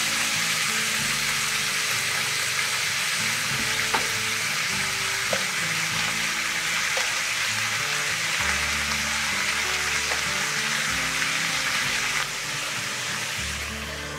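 Pork and napa cabbage sizzling as they stir-fry in a frying pan; the sizzle quietens about twelve seconds in. Background music plays underneath.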